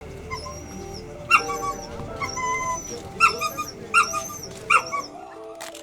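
Dogs whining and yelping: five loud, high cries about a second apart, over soft background music.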